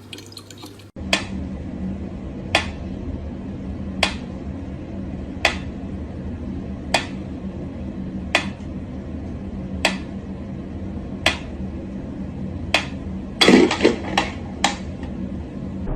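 Sharp taps, evenly spaced about once every second and a half, over a steady low hum, with a short flurry of louder knocks near the end.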